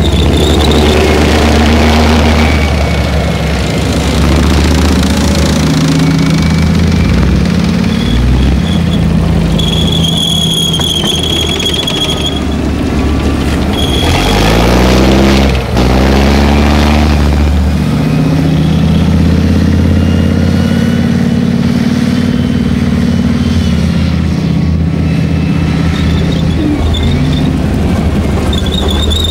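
Tracked armoured vehicles, Leopard 1 tanks and M113 carriers, driving past: heavy diesel engines running loudly, with the high squeal of the tracks coming and going. About halfway through, one vehicle passes close and its engine note swings in pitch.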